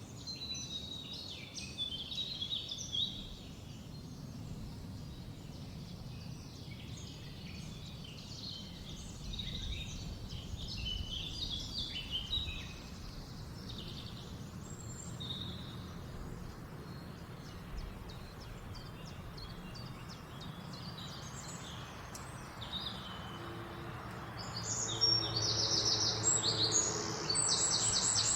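Forest ambience: assorted small birds chirping and singing over a steady low rumble. Near the end it gets louder, with a bird singing a fast run of repeated high notes over a low steady hum.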